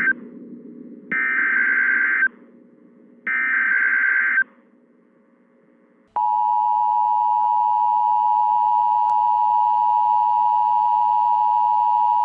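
Emergency Alert System broadcast: two one-second bursts of buzzy SAME data tones follow the tail of a first burst, each spaced about a second apart, encoding the tornado warning header. After a short silence, about six seconds in, the steady two-tone EAS attention signal starts and holds, announcing the National Weather Service voice message.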